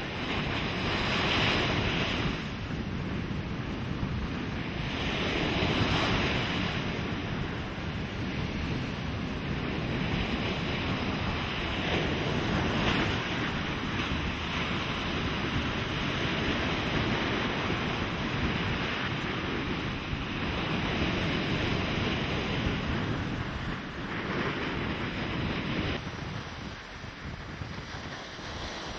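Heavy surf breaking on a sand beach: a continuous wash of foam and backwash, with waves crashing and swelling louder every several seconds.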